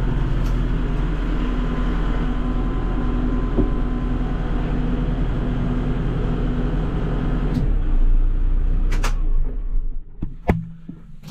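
Tractor diesel engine running steadily, heard from inside the cab. About ten seconds in it stops, and a couple of sharp clicks follow.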